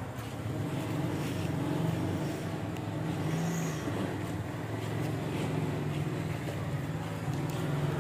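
A steady low engine drone with an even pitch.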